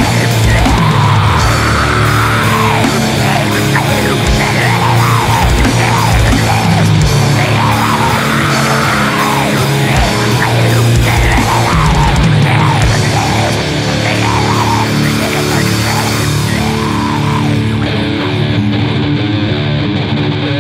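Heavy metal band music: distorted electric guitars and bass over pounding drums. In the last few seconds the drums and cymbals fall away, leaving the guitars.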